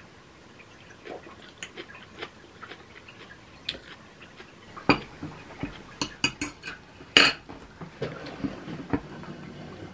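Metal cutlery clinking and scraping on ceramic plates as a finished meal's dishes are handled and stacked. The clinks are scattered, loudest about five and seven seconds in.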